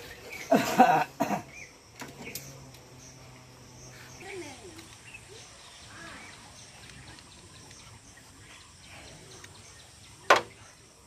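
Quiet outdoor background with birds chirping faintly, broken by a loud burst of noise about half a second in and a single sharp knock near the end.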